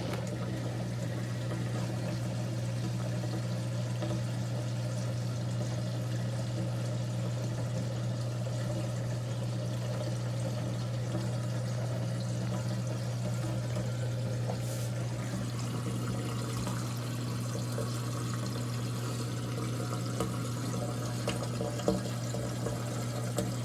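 LG front-load washer's drain pump running with a steady low hum as water rushes through it and out the drain hose during the drain cycle; the pump is working normally.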